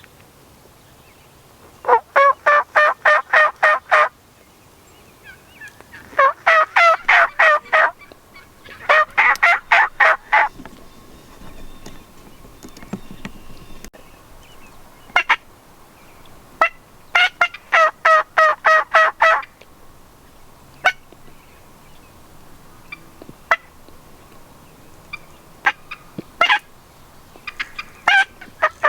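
Turkey calling: four loud runs of rapid, evenly spaced notes, each about two seconds long, with single short sharp notes scattered in between.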